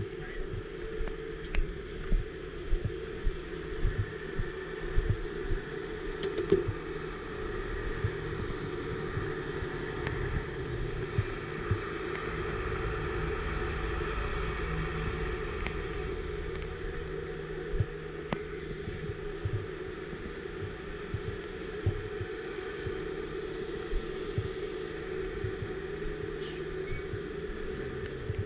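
Heavy wrecker's diesel engine running steadily, with a run of sharp knocks through the first several seconds.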